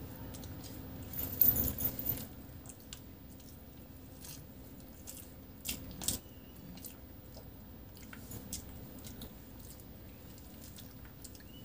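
Fingers mixing rice and curry on a plate, with a loud wet squishing burst about a second in, then a handful of rice taken into the mouth around six seconds in and chewed, with small wet mouth clicks.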